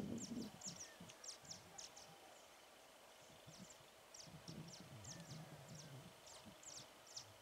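Quiet outdoor ambience: small birds chirping, many short high chirps a second, over a faint low murmur.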